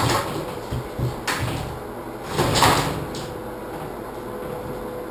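Sliding shower door handled in its frame: a few light knocks, then a short scraping slide of the door about two and a half seconds in, and a small click.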